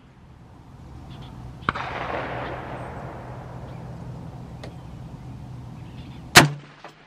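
A single sharp, very loud rifle shot from a PSA JAKL about six seconds in. Before it there is a steady hiss with a low hum and one small sharp click.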